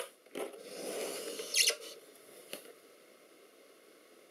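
Handling noise as a kitchen scale and a heavy metal part are shifted into place: a click, then about a second of scraping rub on the work surface that ends in a short, sharp squeak. A faint tick follows.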